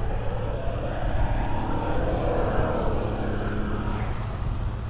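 An engine running at low speed, swelling and fading over a couple of seconds, over a steady low rumble.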